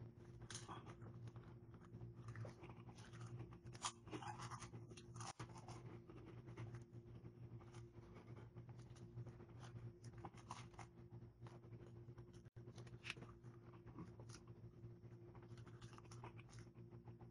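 Faint handling of food on a plate and chewing, heard as scattered small clicks and rustles over a steady low hum.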